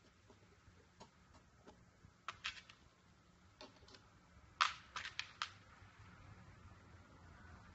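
Sharp clicks and taps from a hand pressing on a small cardboard box. They come in two short clusters, about two and a half seconds in and again around five seconds in, the loudest near the start of the second cluster.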